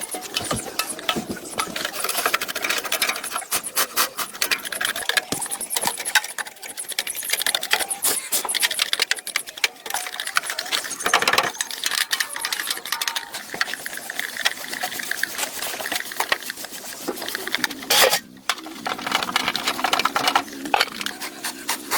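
Dense, irregular scraping and clicking of hand tools working on metal, with a few louder strokes about halfway through and near the end.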